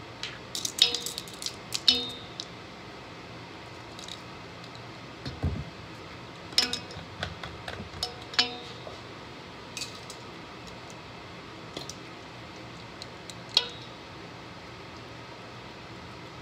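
Scattered clicks and clatters of plastic measuring spoons and bottle caps being handled over a stainless steel bowl, in short clusters, with a low dull thump about five seconds in.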